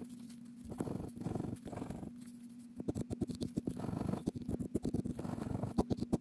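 Plastic scratcher tool scraping the coating off a scratch-off lottery ticket in short strokes, turning into rapid back-and-forth scratching about three seconds in.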